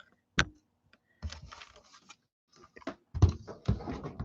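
Typing and clicking on a computer keyboard and mouse: a single sharp click about half a second in, then irregular runs of clattering keystrokes, busiest near the end.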